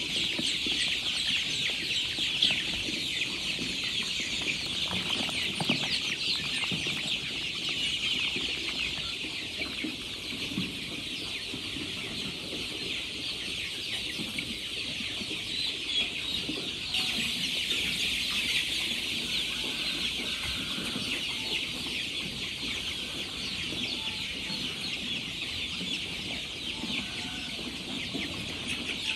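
A flock of birds calling without a break: a dense, busy chatter of many short high calls, like a house full of poultry.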